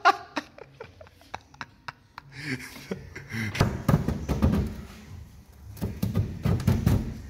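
Scattered knocks and scraping as a pipe is worked against the inside of a BMW E36's front fender lip to roll it, growing into a denser stretch of thumping and rubbing from about three and a half seconds in, with cloth brushing close to the microphone.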